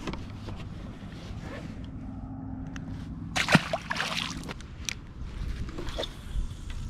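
A largemouth bass dropped back into the lake over the side of a boat: one sharp splash about three and a half seconds in, with a brief wash of water after it. A low steady hum runs underneath.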